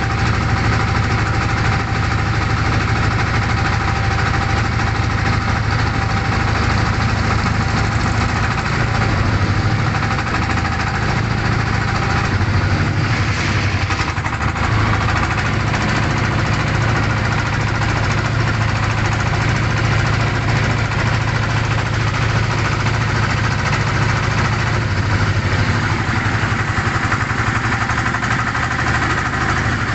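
Engine of a motorised wooden river boat running steadily while the boat is underway, a loud, even low drone.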